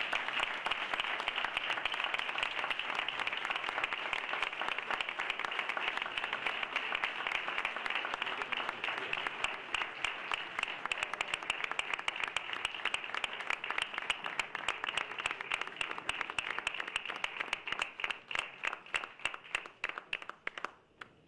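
Audience applauding, long and sustained; near the end the applause thins out into scattered separate claps and then stops.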